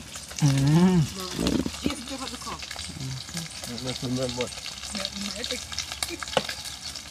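Steady crackling sizzle of food frying in hot oil. A few short wordless vocal sounds come through it, the loudest just before a second in.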